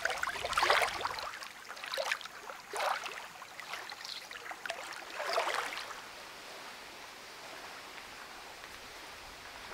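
Small lake waves lapping and splashing on a pebble shore, several uneven washes in the first six seconds, then only a faint steady hiss.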